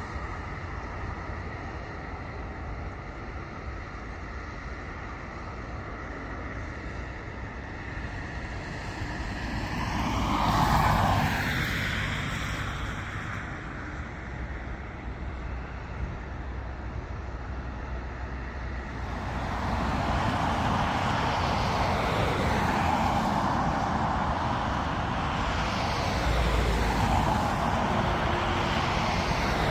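Steady rumble of road traffic, with a vehicle passing about ten seconds in. From about two-thirds of the way through, the noise of a jet airliner's engines builds and holds as the plane approaches.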